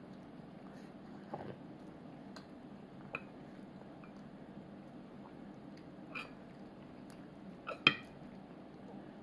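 A toddler chewing food, with a few short clicks of a plastic fork against a plastic plate, the loudest about eight seconds in, over a low steady room hum.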